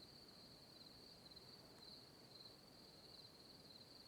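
Near silence, with a faint, steady high-pitched insect trill such as crickets chirring.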